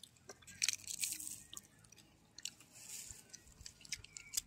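Crisp crunching and chewing of singju, a raw salad of sliced cabbage and chopped greens, in short bursts with sharp crackles about a second in and again around three seconds.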